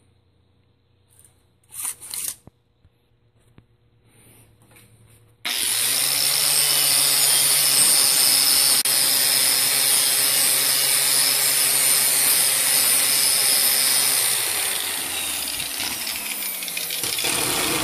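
Angle grinder with a knotted wire wheel scrubbing the paint off a carbon dioxide cylinder. It starts abruptly about five seconds in: a steady motor whine under a harsh scratching hiss, and the pitch sags over the last few seconds.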